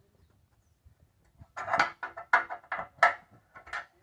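A run of about six sharp metallic clanks and scrapes, starting about a second and a half in: steel tyre tools working the bead of a large 24.5-32 tractor tyre over its steel rim during mounting.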